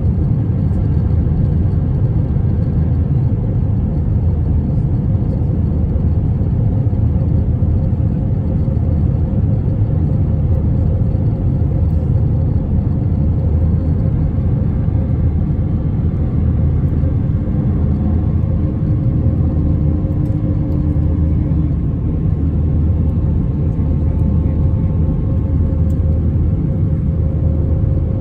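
Airliner cabin noise over the wing of an Airbus A321-232 in flight: its IAE V2500 turbofans and the air rushing past the fuselage make a loud, steady rumble, with a faint steady hum riding above it.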